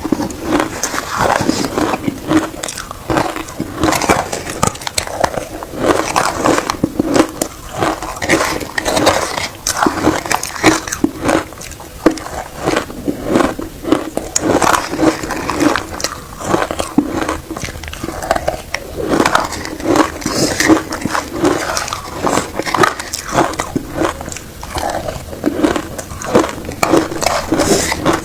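Shaved ice being bitten and chewed, a steady run of crisp crunches and crackles.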